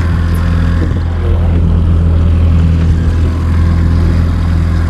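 Fishing boat's engine running steadily on the water, a constant low hum.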